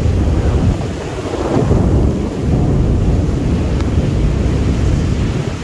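Storm wind gusting hard with heavy rain, the gusts buffeting the microphone in a loud, low rush that rises and falls.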